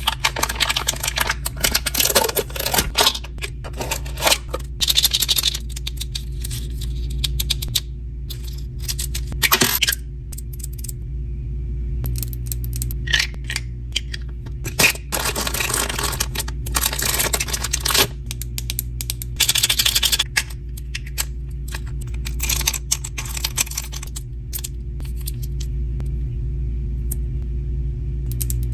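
Foil and plastic packaging crinkling, rustling and tearing as a miniature collectible candy pouch is opened, with sharp clicks and taps of fingernails on the tiny plastic replica candies. The handling comes in spells with short pauses between.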